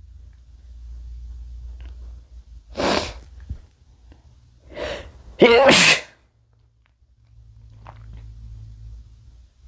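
A man sneezing: a sharp sneeze about three seconds in, then a quick breath and a louder, longer sneeze a couple of seconds later. A low rumble runs underneath.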